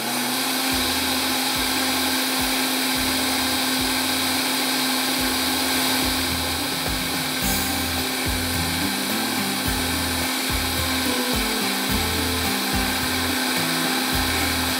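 Electric blender switched on and running steadily at full speed, blending a milkshake of milk, cream and banana pudding mix.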